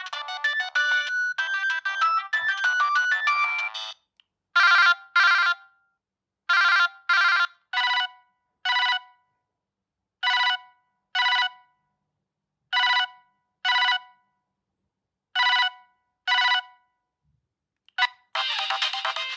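Siemens C65 mobile phone playing its stock ringtones. A fast electronic melody ends about four seconds in. It is followed by a telephone-style ring of short beep bursts, mostly in pairs, about a dozen in all. A new busier melody starts near the end.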